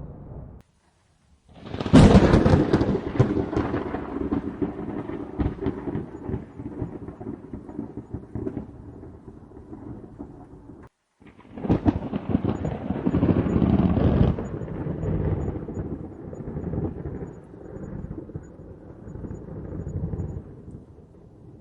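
Two thunderclaps. About two seconds in, a sudden sharp crack of thunder rolls into a long rumble that dies away over some nine seconds. After a short silence near the middle, a second clap swells over a couple of seconds and rumbles on, slowly fading.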